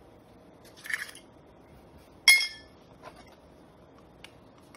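A spice container being handled and opened: a brief rustle about a second in, then one sharp, loud clink a little over two seconds in, followed by a couple of faint ticks.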